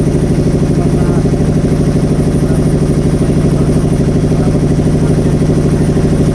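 Motorboat engine running steadily, with a strong hum and an even, fast pulsing beat.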